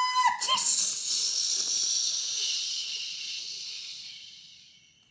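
A woman's voice acting out an enormous sneeze, "aaaatx iiisss": a high, held "aaa" cuts off in a sharp "tx" about half a second in. A long loud "iiisss" hiss follows and slowly fades away over about four seconds.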